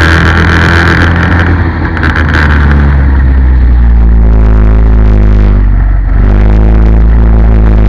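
Go-kart engine heard from onboard, loud and running hard at high revs. Its note dips briefly about two seconds in and again about six seconds in as the throttle comes off through the corners. Wind hisses on the microphone in the first couple of seconds.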